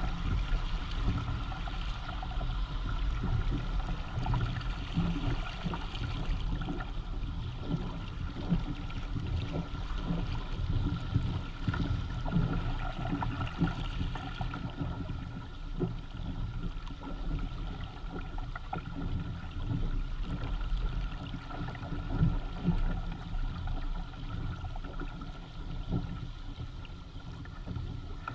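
Water splashing and gurgling along the hull and outrigger floats of a Hobie Tandem Island sailing kayak under way, with many small irregular splashes. A steady low rumble of wind on the microphone runs underneath.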